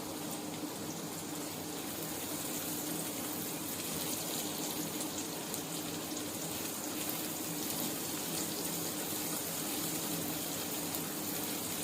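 Chopped garlic and green onions sizzling steadily in hot oil in a pan, a continuous hiss with faint crackles.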